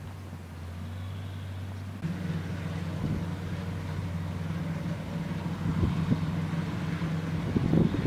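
Dewulf R3000 self-propelled potato harvester running steadily as it lifts potatoes: a constant low engine drone that gets louder and changes note about two seconds in. Some wind rumble on the microphone near the end.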